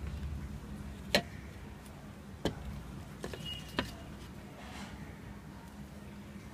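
A few light clicks and knocks as a plastic cup of printing paste and its lid are handled and set down by a stainless steel plate, the loudest about a second in, over a steady low room hum.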